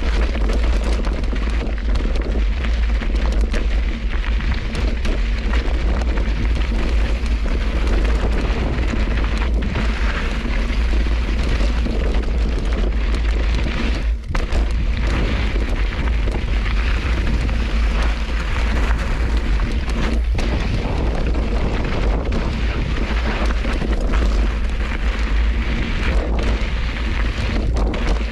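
Constant wind buffeting on the action-camera microphone, mixed with the rumble and crunch of a knobby tyre rolling over a rocky dirt trail while riding.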